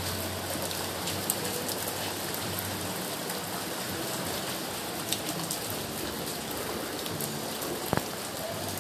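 Steady rain falling, with a few scattered sharp drips and taps.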